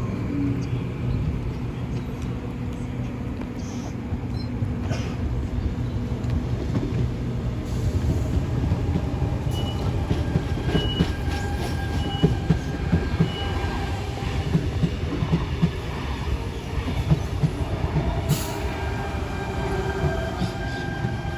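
Electric passenger train running on the tracks: a steady low rumble with uneven clatter of wheels over rail joints, a few short high beeps about ten seconds in, and a high whine that comes in after them and holds.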